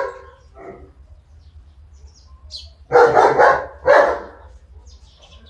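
A dog barking, a quick run of about three loud barks around three seconds in.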